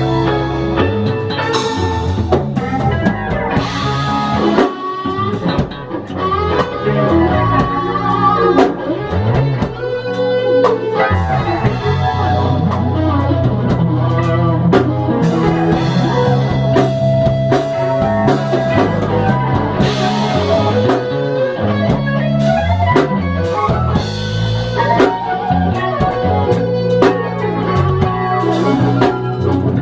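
Electric bass solo with a drum kit behind it: band music in a blues-rock style, the bass line moving under melodic notes and steady drum hits.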